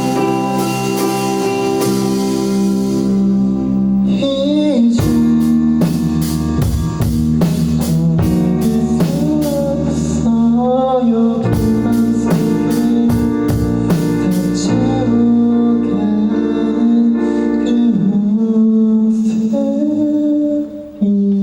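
Pop-rock song with guitar and a steady drum kit beat, a voice singing in parts over the instruments. The drum hits thin out about two-thirds of the way in and the music carries on with held chords.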